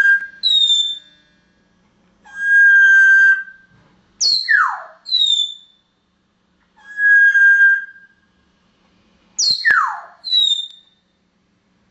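African grey parrot whistling a repeated phrase: a held steady note about a second long, followed by a quick downward swoop and short high falling chirps. The phrase comes round about every five seconds.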